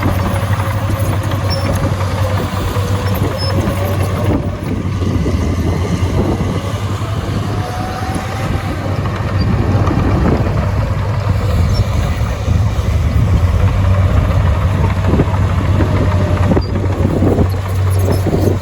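Heavy diesel engine of an earthmoving machine running under changing load, its pitch rising and falling over a steady low hum.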